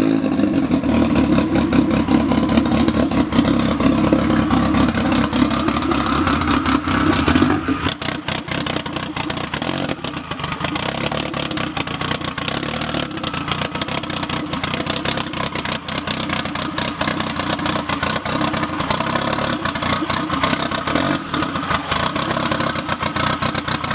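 Freshly built turbocharged Honda K-series engine in a Toyota MR2 running during its first start-up, a few seconds after catching. It holds a steady higher note for the first several seconds, then about eight seconds in settles into a rougher, lower running with a lot of crackle.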